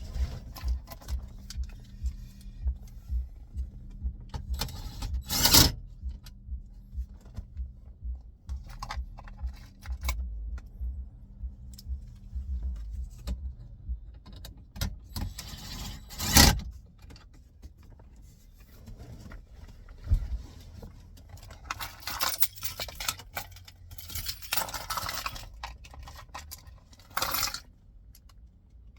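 Hands and tools working a car radio back into the dash: small metallic clinks and clicks as screws and the bracket are handled, two loud knocks about five and sixteen seconds in, and scraping and rustling of plastic trim near the end.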